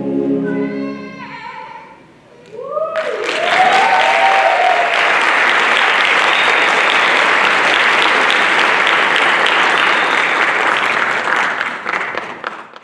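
A concert band's final held chord fades away, and about three seconds in an audience breaks into loud applause with whoops and cheers. The applause cuts off abruptly near the end.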